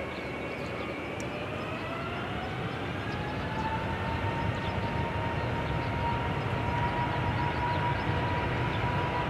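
Boeing 777-200's twin turbofan engines spooling up for takeoff. A rising whine settles into a steady high tone about three to four seconds in, under a growing rumble that gets louder.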